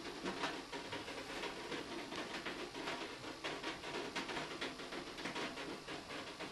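Water dripping onto tin cans and other recycled objects of a water-driven sound machine, making a dense, irregular patter of small ticks and taps like rain.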